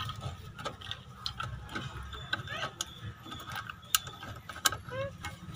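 Pliers working a steel brake shoe hold-down spring and cup onto its pin in a car's rear drum brake, pressing and twisting it to lock: irregular sharp metallic clicks and scrapes.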